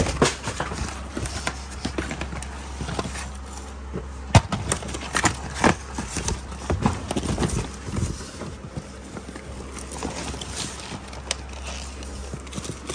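Small cardboard product boxes being shuffled and knocked against each other by hand inside a shipping carton, with rustling and irregular knocks. The sharpest knocks come about four and five and a half seconds in.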